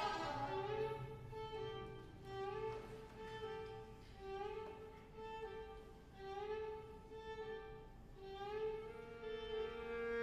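Violin duo playing a soft passage: a short figure of upward-sliding notes repeated again and again, growing louder near the end.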